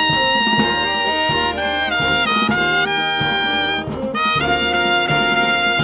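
Brass marching band playing loudly up close, a trumpet out front over saxophones and sousaphones, holding long notes with a brief break about four seconds in.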